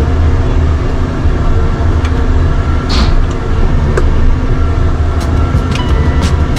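Heavy diesel machinery running with a steady low rumble, with a few sharp knocks and clanks partway through and near the end.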